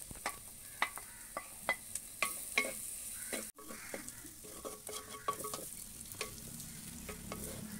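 A wooden spoon stirs and scrapes shallots, coconut pieces and curry leaves frying in coconut oil in a clay pot. Under a steady sizzle, the spoon knocks irregularly against the pot. The sound drops out for a moment about halfway through.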